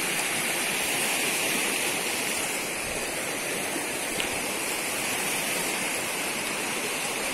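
River flowing fast over rocks: a steady rush of water.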